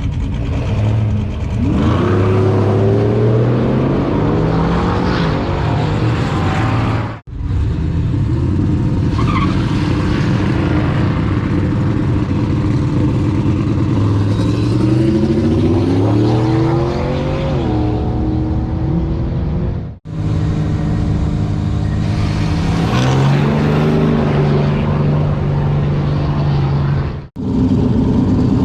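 Car engine accelerating hard, its pitch climbing and then dropping back at gear changes, heard in several short clips cut one after another.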